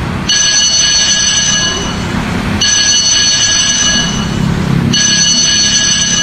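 Mobile phone ringtone: a bright electronic ring of several steady high tones at once, sounding in three bursts of about two seconds each, over a low rumble of traffic.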